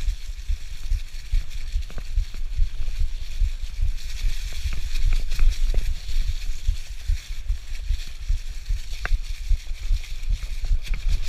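Mountain bike rolling along a leaf-covered dirt trail: tyres rustling and crunching through dry fallen leaves, over a constant low buffeting rumble of wind and trail vibration on the camera's microphone, with a few sharp clicks and knocks from the bike.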